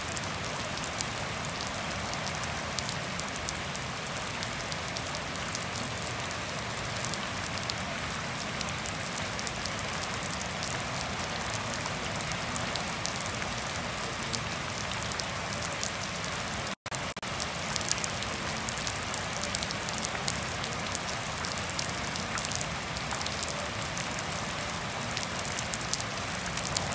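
Steady rain falling at night on grass, leaves and a puddled path: an even hiss with many sharp individual drop splats. A split-second gap in the sound comes about two-thirds of the way through.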